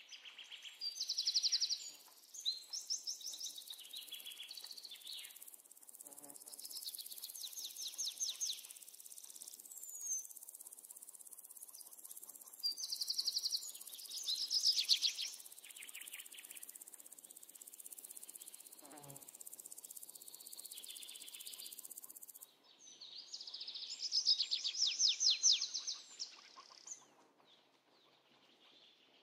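Songbirds singing repeated short, rapid trilled phrases, with a steady high insect hiss that cuts off about 22 seconds in.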